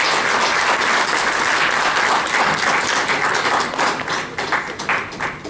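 Audience applauding: dense, steady clapping that thins into scattered separate claps and dies away near the end.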